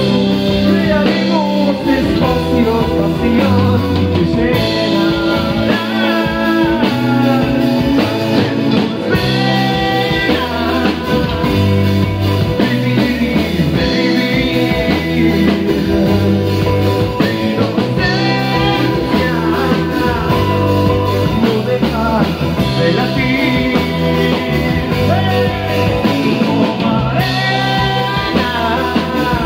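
Live rock band playing: electric guitar, electric bass and drum kit with a steady beat, and a male lead voice singing over it.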